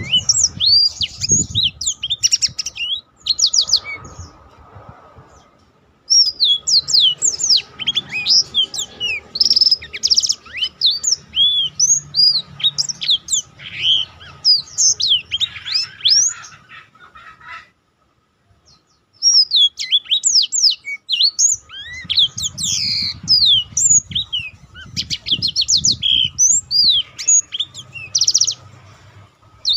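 Black-throated canary singing a long, rapid, rolling song of high sweeping chirps and trills. The song breaks off about three seconds in and again just past halfway, then resumes.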